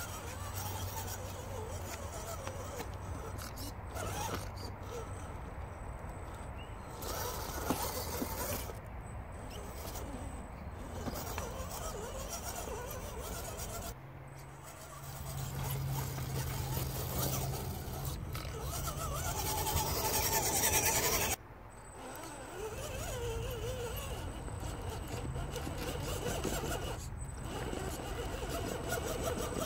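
Axial SCX10 RC crawler's electric motor and geared drivetrain whirring as the truck crawls slowly over logs and ramps, with tyres scraping and knocking on wood and tarp. The sound changes abruptly about halfway through and again about two-thirds through.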